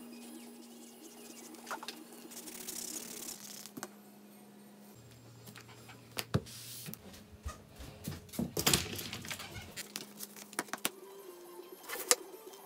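Scattered sharp clicks and knocks from tools and leather being handled on a workbench, loudest around the middle and again near the end. Under them runs a low steady tone that steps down in pitch a few times.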